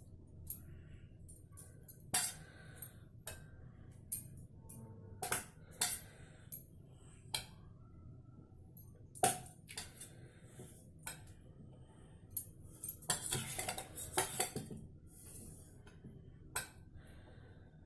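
Utensils clinking and scraping against dishes as soaked dahi vadas are lifted from their bowl onto a serving plate: scattered single clinks, with a busier stretch of scraping and clattering about two-thirds of the way through.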